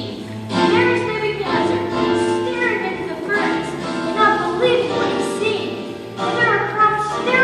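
Music: a song with singing voices over sustained instrumental chords.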